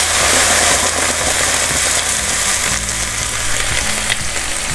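Vegetables sizzling hard in a hot pan as white wine is poured in to deglaze it, a dense hiss that eases a little over the seconds.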